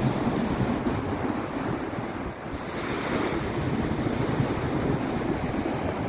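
Sea surf breaking and washing over a flat rock shore, with wind buffeting the microphone in a low, gusty rumble.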